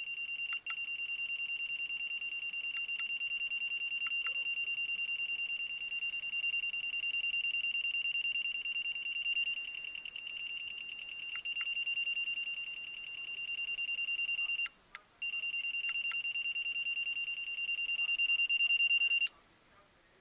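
SatLink WS-6933 satellite finder's buzzer sounding one steady high beep tone while the meter reads a satellite signal, breaking off briefly about 15 seconds in and stopping about 19 seconds in. A few sharp clicks sound over it.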